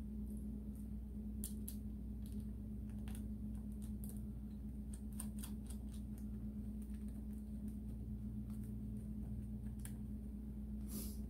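Irregular light clicks and taps of small parts being handled during hand work on motorcycle wiring, over a steady low hum.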